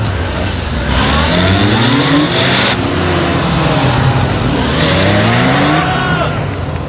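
Police motorcycle engine revving up and dropping back over and over, its pitch climbing in several short runs: hard bursts of acceleration between tight corners.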